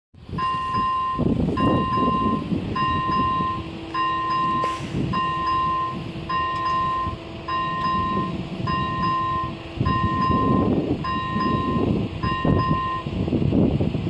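Electronic bell of an AŽD 71 level-crossing warning signal ringing a repeated two-tone chime, about once every 1.2 seconds. It stops near the end, with the barriers down. A low, irregular rumble runs underneath.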